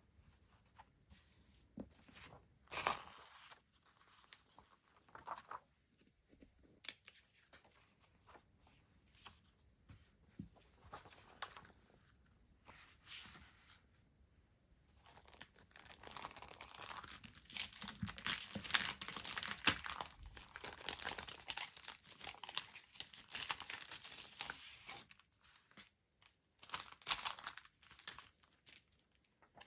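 Stationery packaging being handled and torn open: scattered short rustles, then a stretch of dense crinkling and tearing, then a few last rustles near the end.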